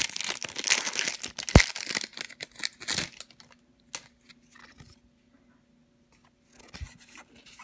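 Pokémon booster pack wrapper crinkling and tearing open for about three seconds, with one sharp snap partway through. Then it goes quiet, with one soft knock near the end.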